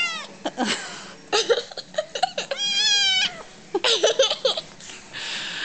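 A Siamese kitten meowing: one meow trails off at the start and a longer one comes about three seconds in. A woman laughs in short bursts as the kitten play-fights with her hand.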